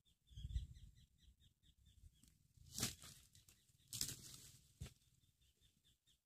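Faint, rapid chirping repeated about five times a second, with two short bursts of noise about three and four seconds in, over a low rumble.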